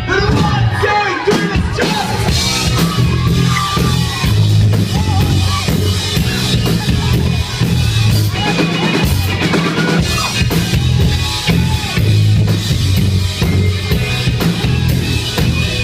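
Live rock band playing a song: drum kit, bass and guitars, with sung lines over them.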